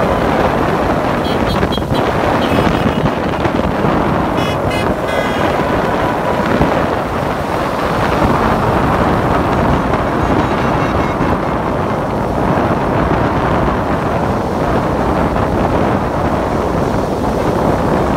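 Steady noise of a slow line of cars and pickup trucks driving past on a wet road, with wind buffeting the microphone.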